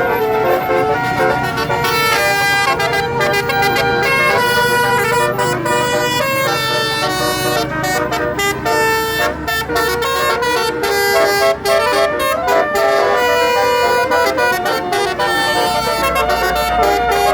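A bus's telolet horn, a set of multi-tone musical air horns, tooting a melody with several notes sounding together and the pitch shifting from note to note. A low rumble joins near the end.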